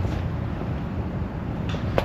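Steady low engine rumble with a couple of light ticks near the end.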